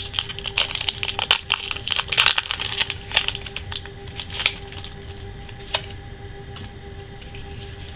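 Foil wrapper of a Pokémon trading-card booster pack being torn open and crinkled by hand: a dense run of crackles for about three seconds, then scattered clicks that die away about six seconds in.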